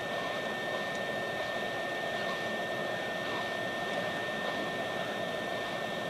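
Hot-air rework station blowing a steady hiss, with a thin constant high whine, heating a phone charging port's solder joints toward reflow.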